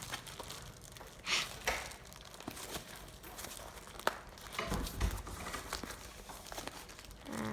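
Packaging being handled and opened by hand: intermittent crinkling and tearing with scattered taps, and a dull thump about five seconds in.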